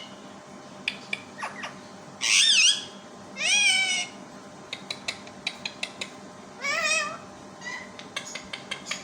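Pet parrot calling: three loud, drawn-out squawks with a wavering pitch, about two, three and a half and nearly seven seconds in, with short sharp clicks in between.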